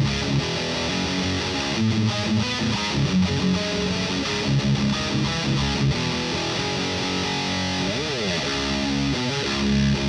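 Electric guitar played through the Adorable Electronics Heckmouth distortion pedal, riffing on distorted chords, with a pitch slide about eight seconds in.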